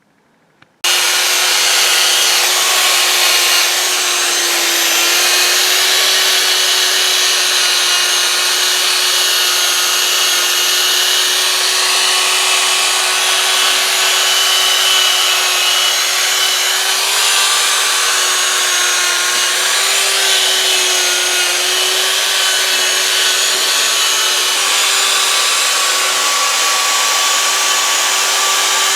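Electric power tool starts abruptly about a second in and runs steadily, abrading a metal part to take it back down before repainting. Its motor pitch dips briefly a couple of times as it is loaded.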